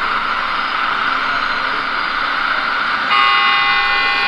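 Radio-controlled Liebherr 946 excavator model running steadily as it dumps its bucket and swings back. About three seconds in, a horn-like multi-pitched tone sounds and holds steady for over a second.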